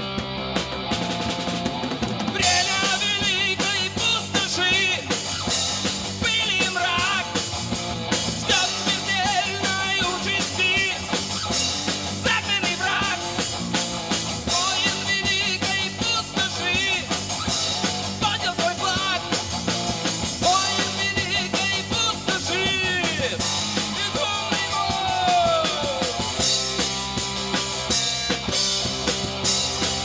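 Live rock band playing with drum kit, electric guitar and bass guitar; a male singer comes in a couple of seconds in and sings until near the end, where the band carries on alone.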